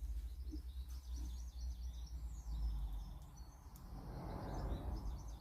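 Birds chirping, with a steady low rumble underneath and a soft rustling noise about four seconds in.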